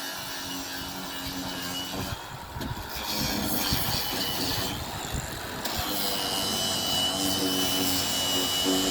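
A power tool running on wood, a steady motor hum with a hiss of the work, getting louder about three seconds in.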